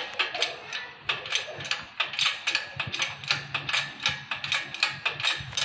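Hand ratchet wrench clicking steadily as it is worked back and forth on a nut, about four clicks a second.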